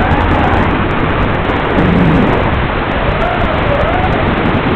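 FPV racing quadcopter in flight: a loud, steady rushing noise from the motors and propellers, with a faint whine that rises and falls as the throttle changes.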